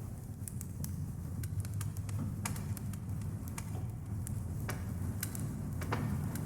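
Dark ambient music: a steady low drone with sparse, irregular crackling clicks over it.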